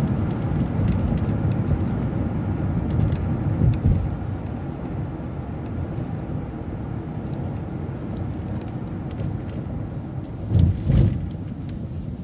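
City bus driving along a road: steady engine and road rumble, with a low thump about four seconds in and a double thump near the end.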